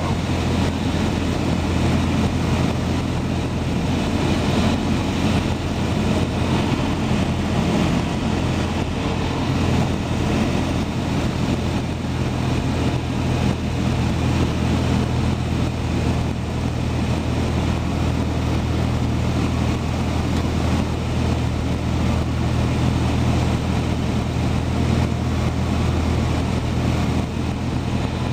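Cessna 172's piston engine and propeller running in a steady drone, heard from inside the cabin, on final approach.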